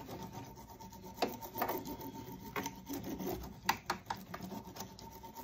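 Hand roller worked back and forth over resin-soaked fibreglass matting to bed it down, making irregular rubbing and scraping strokes with a few sharper clicks.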